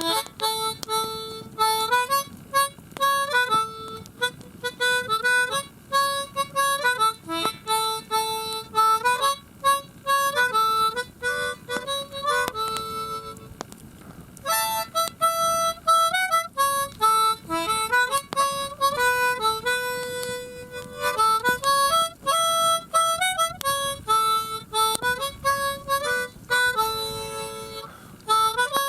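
Harmonica played in melodic phrases, often sounding several notes at once, with a brief pause about halfway through.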